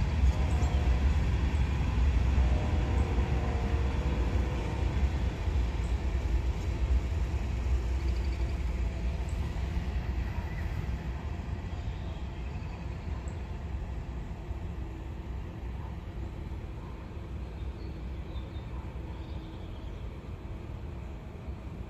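CSX freight train of covered hopper cars rolling by, a steady low rumble of wheels on rail that slowly fades as the cars move away.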